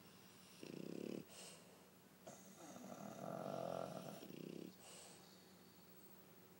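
A pug and a French bulldog snoring: a brief snore about half a second in and a longer one from about two to four and a half seconds in, each followed by a short hissing breath.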